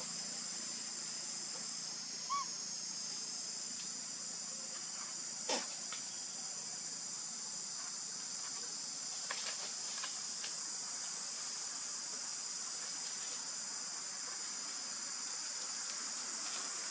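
Steady, high-pitched insect chorus droning throughout, with a short chirp about two seconds in and a few sharp clicks around the middle.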